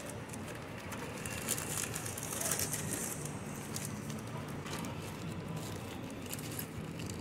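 Clear plastic zip-lock bag crinkling as hands handle and open it, in crackly bursts that are heaviest about two seconds in, over a steady low background hum.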